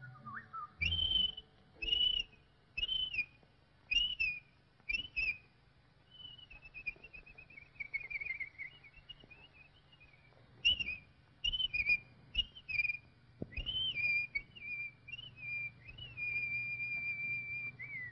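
A cartoon bird's whistled calls: five short whistles about a second apart, then a long wavering whistle that falls in pitch, more short whistles, and a long held note near the end. A faint low hum runs underneath.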